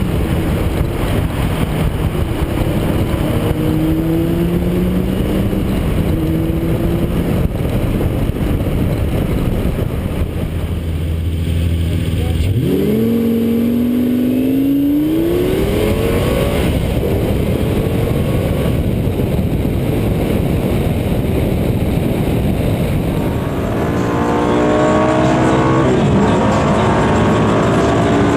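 Lamborghini Gallardo V10 engine running under load over heavy road and wind noise. Around the middle the revs drop low, then climb steeply under hard acceleration. From about three-quarters in it is louder, holding a higher, steady note.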